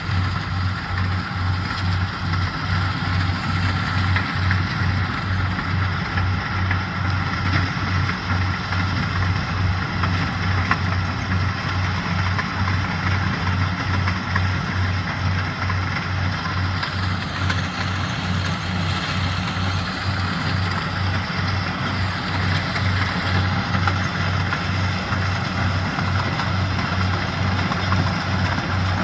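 Corn harvesting machine's engine running steadily, with an even low, rapidly pulsing throb and a continuous mechanical hum above it.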